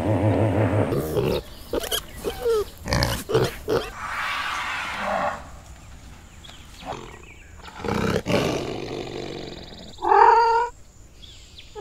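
Tiger growling and roaring in a run of rough calls. About ten seconds in, and again at the very end, comes a shorter, higher pitched call that bends in pitch.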